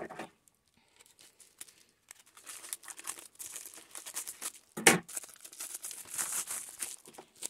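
Plastic bubble mailer crinkling as it is handled and cut open with scissors, with one sharp click about five seconds in.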